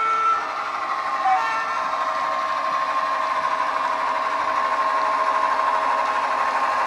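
Recorded EMD diesel engine sound of an Irish 141 class locomotive, played by a Loksound 5 DCC sound decoder through the model's small onboard speakers. It runs steadily under power as the model moves. A horn note cuts off just at the start.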